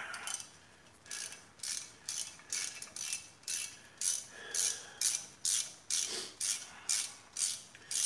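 Hand socket ratchet with a T30 Torx bit clicking as it backs out the screw that holds the brake rotor to the hub: a short ratcheting burst on each return swing, about two to three a second.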